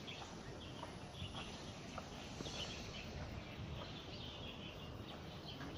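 Outdoor garden ambience: birds chirping in repeated short clusters over a steady background hiss.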